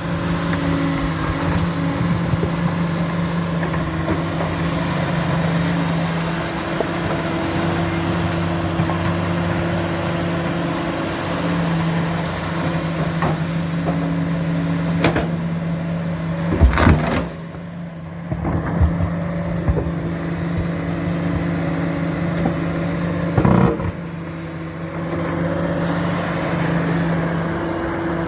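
Komatsu PC400 excavator's six-cylinder diesel engine running under working load, a steady drone whose pitch shifts as the hydraulics work. Three loud knocks in the second half, each of the last two followed by a brief drop in engine level.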